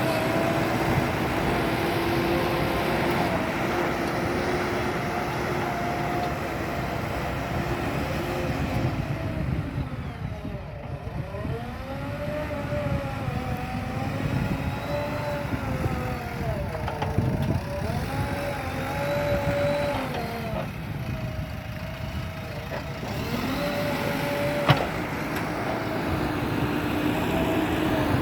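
JCB backhoe loader's diesel engine running, its pitch rising and falling repeatedly through the middle as the engine speed changes with the work. A single sharp click near the end.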